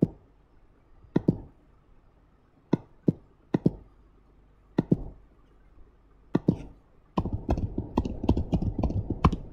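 A few separate clicks, then a quick run of computer keyboard typing over the last three seconds.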